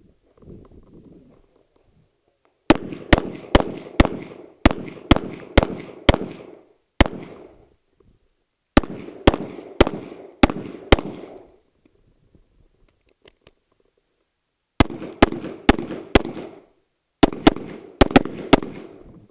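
Semi-automatic handgun firing about two dozen shots in four quick strings, two to three shots a second, with pauses of one to four seconds between strings; each shot is sharp and echoes briefly. The shooting starts about three seconds in.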